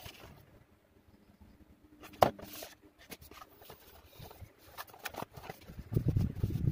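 Hands handling and opening a small cardboard toy box: faint scuffs and taps, a sharp snap about two seconds in, and louder rustling of the cardboard and packaging near the end.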